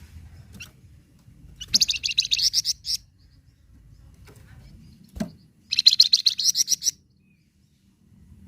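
Flamboyan songbird singing two rapid, chattering trills, each about a second long and a few seconds apart. A short knock comes just before the second trill.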